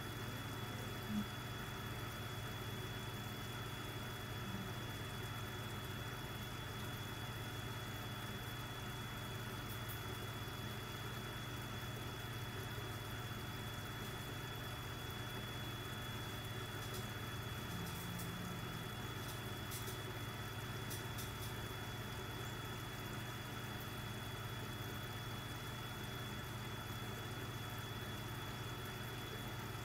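Aquarium air pump humming steadily, with a thin high whine above the hum.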